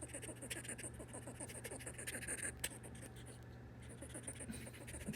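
A squirrel gnawing a pecan: rapid small scraping clicks of teeth on the shell, with a few sharper ticks.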